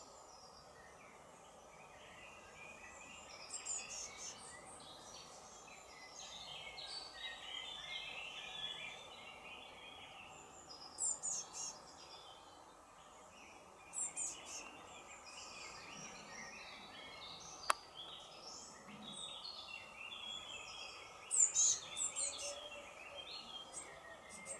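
Small songbirds calling: clusters of sharp, high call notes a few times, over a continuous background of softer bird chatter and steady ambient noise. A single sharp click about two-thirds of the way through.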